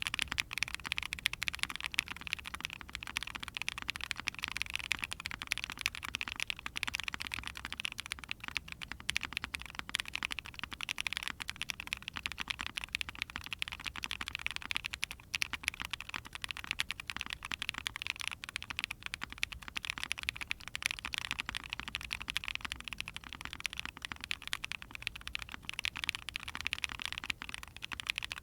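Continuous fast typing on a mechanical keyboard: KNC Green Jacket factory-lubed long-pole linear switches in an Ai03 Vega with a POM plate and GMK keycaps. It makes a dense, unbroken patter of keystroke clacks.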